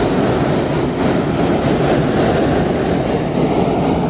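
Hot air balloon's propane burner firing: a loud, steady rushing noise.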